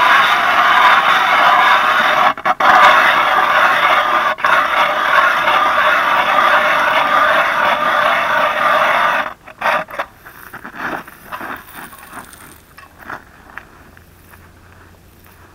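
Hand ice auger drilling a test hole through lake ice: its blades cut with a loud, steady grinding scrape, broken twice for a moment, that stops about nine seconds in. After that come a few fainter scrapes and knocks.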